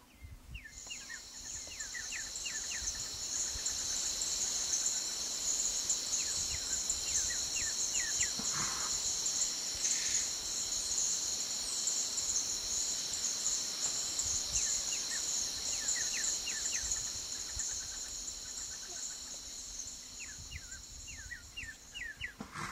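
Bush ambience: a dense insect chorus gives a steady high shrill throughout, fading in over the first few seconds and out near the end. Runs of a bird's short, quick down-slurred chirps come every few seconds.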